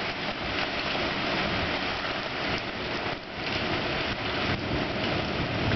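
Violent wind-driven rainstorm: heavy rain pouring down and strong wind rushing through trees, a steady noise that drops briefly about three seconds in.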